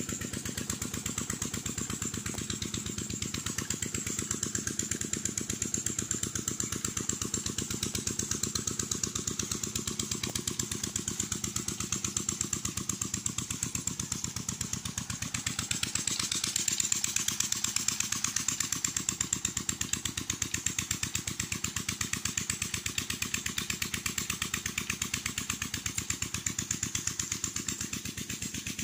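An engine running steadily with a fast, even beat, getting a little louder around the middle.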